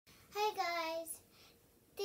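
A young girl's voice drawing out one word in a sing-song tone that falls in pitch, starting about a third of a second in and lasting under a second.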